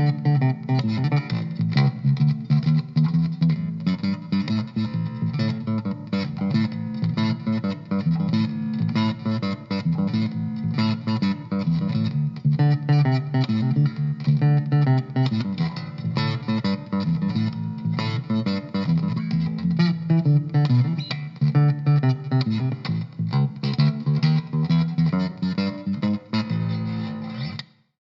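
Electric bass guitar, a 1951-style Fender Precision Bass copy, playing a steady run of plucked notes that cuts off suddenly near the end.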